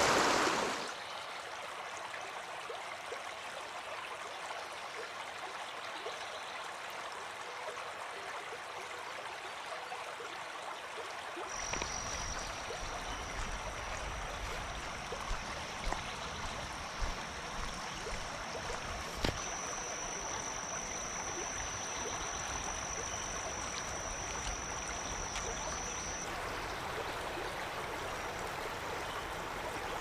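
Steady rush of river water flowing over granite ledges and small rapids. A steady high-pitched tone joins about a third of the way in, steps slightly higher partway through, and stops a few seconds before the end.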